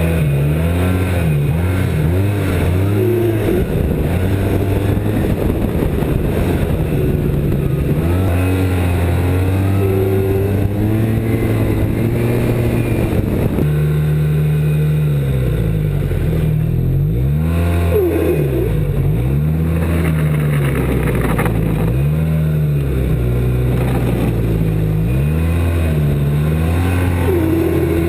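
2007 Arctic Cat Z1 snowmobile engine running and being revved up and back down again and again, with a higher squeal coming and going over it, which the owner takes for a squealing drive belt of unknown cause.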